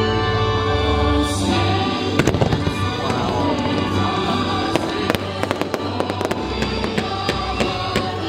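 Fireworks going off over music: sharp bangs and crackles begin about two seconds in and come thicker in the second half, over steady music.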